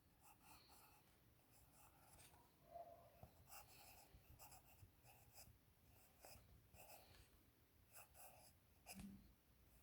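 Faint sounds of handwriting: short, scratchy writing strokes coming and going.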